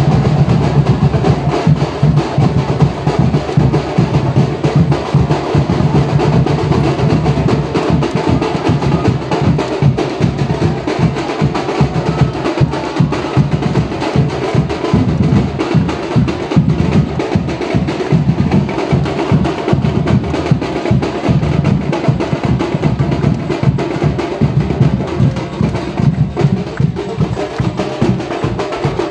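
Dhol-tasha drumming: dense, fast drum strokes with sharp cracking snare-drum hits over a low drum beat, loud and unbroken.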